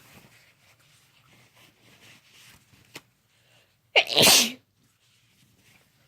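A woman's induced sneeze about four seconds in: one loud sneeze with a sharp start followed by a half-second burst.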